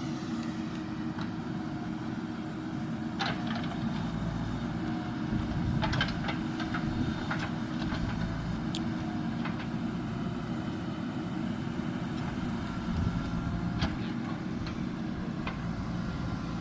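Diesel engine of heavy digging and loading equipment running steadily under work, with a few scattered sharp knocks and clanks.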